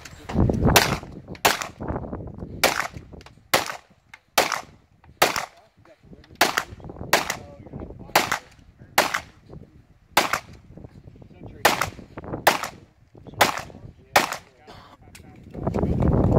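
Pistol firing about fifteen single shots at an even pace, roughly one a second with a few slightly longer gaps, each shot sharp and short. A rush of low noise rises near the end after the last shot.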